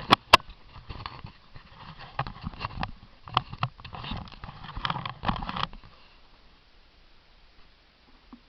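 Handling noise on the action camera as it is screwed onto its mount: a few sharp clicks, then irregular rubbing and knocking that stops about six seconds in.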